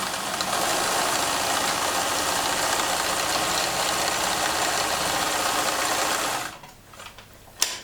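Pfaff 211 sewing machine running steadily while sewing a triple zigzag stitch, stopping about six and a half seconds in. A single sharp click follows near the end.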